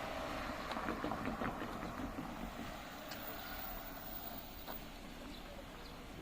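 A vehicle passing and fading away, its running noise dying down over several seconds, with a few short clicks about a second in.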